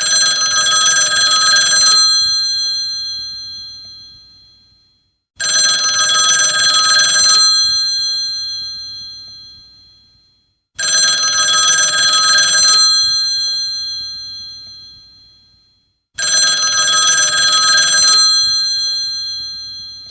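Old telephone bell ringtone: four rings about five and a half seconds apart, each a loud two-second ring of the bell that then dies away over a few seconds. The last ring is cut off at the end.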